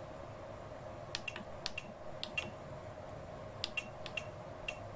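Push buttons on a Zonestar P802QR2 3D printer's LCD control panel clicking as they are pressed to move through the menu: a series of sharp clicks from about a second in, several in quick pairs, over a faint steady hum.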